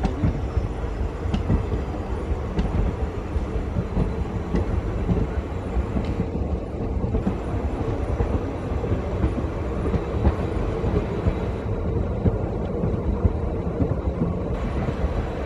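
WDP4D diesel locomotive running during shunting: a steady, dense rumble with a constant hum and a few faint clicks.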